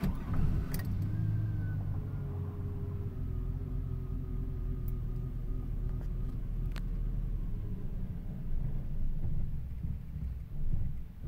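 GM full-size pickup's engine starting up with a sharp click or two, then running at idle with a steady low rumble. A faint whine falls slowly in pitch over the first few seconds as the idle settles.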